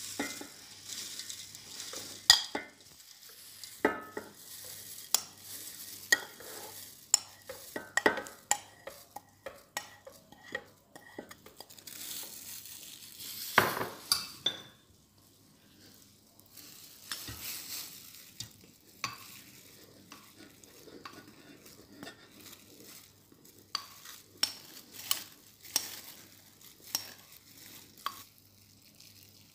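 Dry rolled oats, then flour, tipped from a bowl into a stainless-steel stand-mixer bowl: rustling with many sharp taps and clicks against the metal, the loudest about two seconds and about fourteen seconds in.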